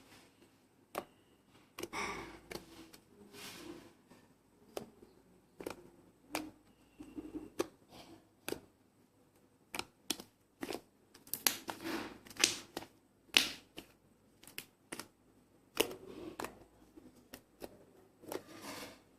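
Slime being squeezed and stretched by hand, giving irregular sharp clicks and pops, coming in quicker runs in the second half, with a few short squishy rustles.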